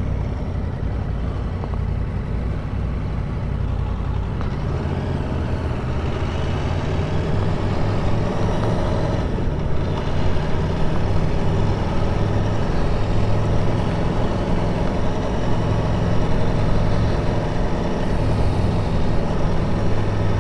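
Aprilia Tuono V4 1100's V4 engine running steadily at low revs on the move, getting a little louder from about eight seconds in.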